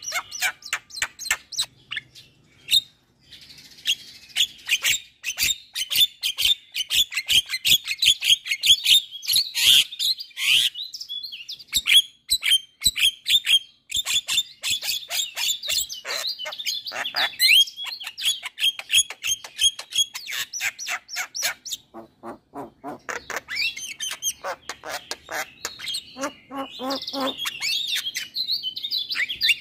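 Javan myna singing: a rapid, chattering stream of short notes that pauses briefly about three-quarters of the way through, then resumes with harsher, lower notes.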